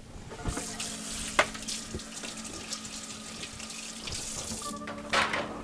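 Kitchen tap running into a sink for about four seconds, water splashing, then shut off, with a few small clicks and knocks and a short louder noise near the end.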